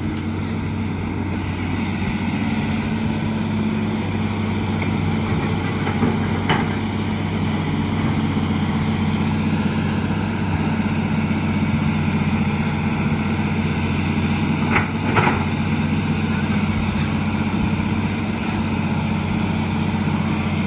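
Excavator's diesel engine running steadily while it works, with a couple of brief sharp noises about six seconds in and again around fifteen seconds.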